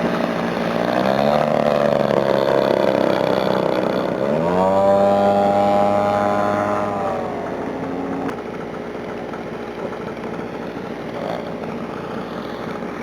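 Large radio-controlled airplane's engine and propeller running, with the pitch rising about a second in and sharply again near four seconds as the throttle opens, then dropping back about seven seconds in.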